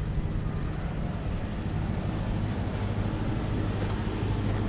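Ford 7.3 Powerstroke turbodiesel V8 idling steadily, left running so it can cool down after hauling a load of hay bales.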